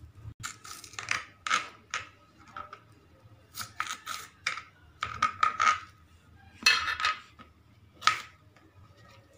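Small kitchen knife slicing through fresh okra on a cutting board: a dozen or so short, crisp cuts and scrapes at uneven intervals.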